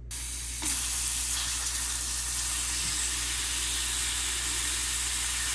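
Water from a kitchen faucet's spray head pouring onto lichen in an enamel dye pot: a steady spraying hiss that gets louder about half a second in.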